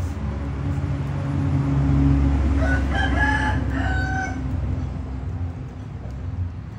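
A rooster crows once, from about two and a half seconds in for roughly two seconds, over the low steady rumble of a passing motor vehicle's engine that swells and then fades.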